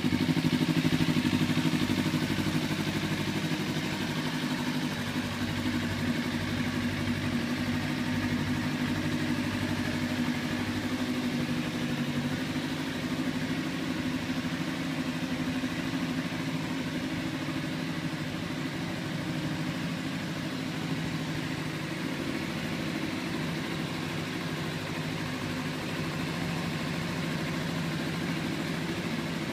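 Kawasaki Ninja 300's parallel-twin engine idling steadily through a LeoVince SBK aftermarket exhaust, with no revving. It eases slightly in level over the first few seconds, then holds even.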